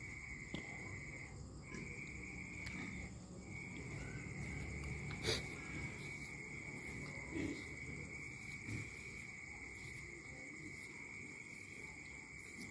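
Crickets trilling in one steady high tone that breaks off briefly twice in the first few seconds. A sharp click comes about five seconds in, and a few soft knocks follow.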